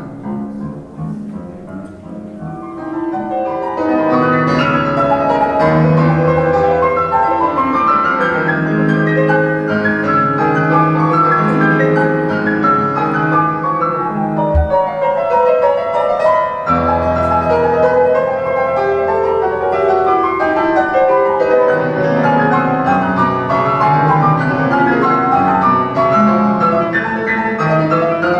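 Classical piano music played back from reel-to-reel tape over a high-end stereo system with MBL loudspeakers; it starts softly and swells to a full, steady level about four seconds in.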